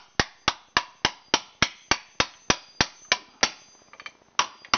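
A claw hammer strikes the end of a printer roller's steel rod, seated in the top of an upright pipe, in quick regular blows of about three to four a second. Each blow drives the rod down through the pipe to force the rollers off. Near the end there is a short pause with a few light clicks, then one more blow.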